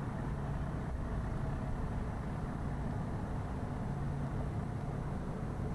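Steady low mechanical drone of an engine or motor running at a constant speed, with a continuous low hum and no sudden events.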